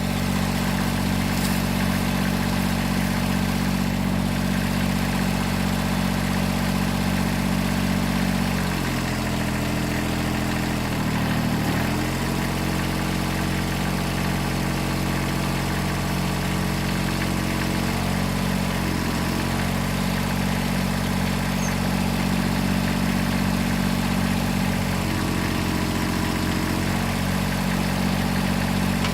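1978 Kubota B6100E tractor's small three-cylinder diesel running steadily at less than half throttle while driving a three-point backhoe's hydraulics. Its note dips and recovers a few times, most clearly about nine to twelve seconds in, as the hydraulics take load.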